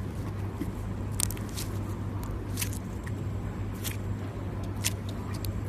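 Clear slime squeezed and pressed by hand, giving several irregular, sharp clicking pops as trapped air bubbles burst, over a steady low hum.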